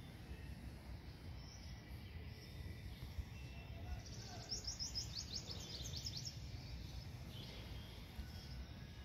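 A bird gives a quick run of about ten high, falling chirps about halfway through, over a steady low outdoor rumble.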